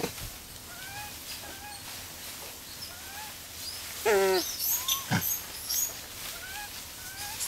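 Formosan rock macaques calling: short rising chirp-like calls repeat every half second or so. About four seconds in comes one louder, wavering call lasting under half a second, and a brief thud follows about a second later.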